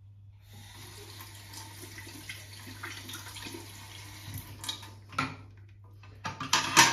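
Water running through a thermostatic shower mixer, an even hiss, with a sharp knock about five seconds in and a louder clatter of knocks near the end.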